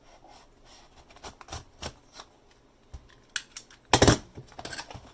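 Packaging being handled and opened by hand: scattered small clicks and scrapes, with a louder burst of scraping about four seconds in.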